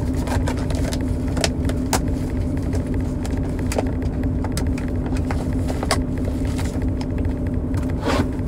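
Steady low rumble of an idling truck engine, heard from inside the cab, with a constant low hum and scattered short clicks and taps over it.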